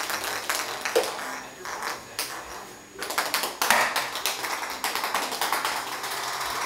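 Rapid, irregular light taps and clicks on a hard tile floor. They come in two bouts: thinning out about a second in, then picking up again about three seconds in.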